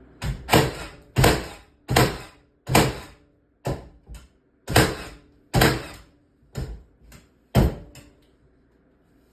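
Ridgid battery-powered 30-degree framing nailer firing 3-inch galvanized nails in rapid succession: about ten sharp shots, roughly one every 0.7 s, stopping near the end.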